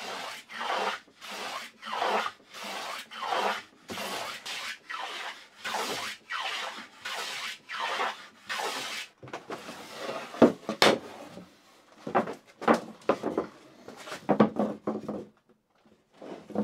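Hand plane cutting a small chamfer along the edge of a wooden board in quick, short, rough strokes, about three every two seconds. About nine seconds in the strokes stop and give way to a few irregular wooden knocks and clatter.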